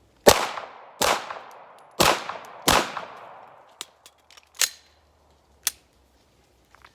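Four 9mm pistol shots from a Glock 17 Gen 5, fired in two quick pairs, each followed by a short echo. Then come a few much quieter clicks and clacks as the pistol stops firing, which the shooter puts down to the slide coming forward without picking up the next round from the magazine.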